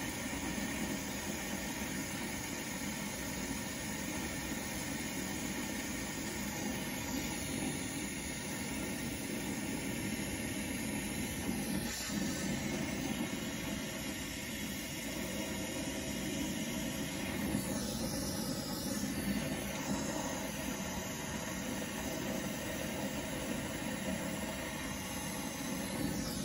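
Brazing torch flame hissing steadily while it heats the copper refrigerant tubing at a refrigerator compressor for a brazed joint.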